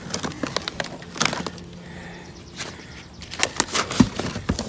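Scattered clicks, knocks and rustling of cameras and papers being handled and sorted, over a faint steady hum that fades about halfway through.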